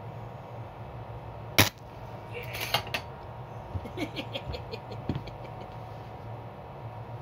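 A cheap mains LED lamp, overdriven from a variac at about 600–650 volts, fails with one sharp, loud pop about a second and a half in as it shorts out, followed by a brief crackle and a scatter of small clicks. A steady low hum from the variac runs underneath.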